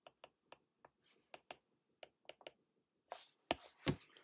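Stylus tip tapping and scratching on a tablet's glass screen while handwriting: a string of quick, irregular clicks, then a longer scraping stroke and two louder knocks near the end.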